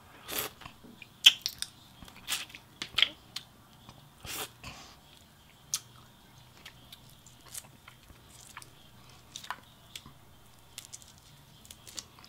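Close-up eating sounds of boiled shrimp and crawfish: chewing and wet mouth sounds, with sharp clicks and crackles of shells being pulled apart and peeled. The sounds are busiest in the first five seconds and become sparser clicks after that.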